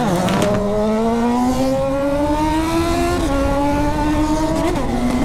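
Honda CB1000R's inline-four with a straight-pipe exhaust accelerating under load: the engine's pitch climbs steadily for about three seconds, drops at an upshift, then holds steady.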